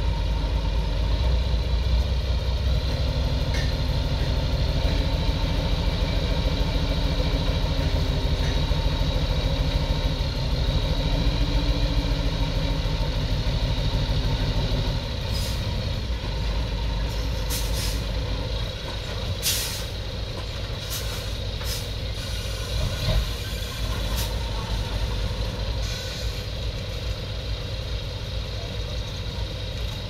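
Heavy diesel earthmoving engine working hard, its pitch rising and falling, for about fifteen seconds, then dropping to a lower, steadier running. After that come several short hissing bursts of air.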